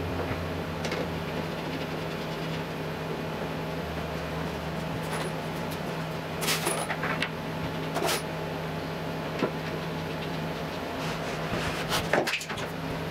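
Handling noise from assembling screwed MDF and plywood panels: scattered light clicks and knocks, loudest in a short clatter near the end, over a steady low hum.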